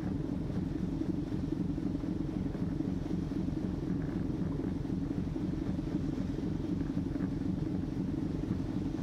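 A car ferry's diesel engine running steadily underway, a low throbbing drone with a faint rush of wind and water over it.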